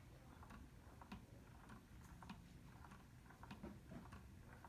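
Near silence with faint, irregular soft clicks, about two or three a second, over a low room hum.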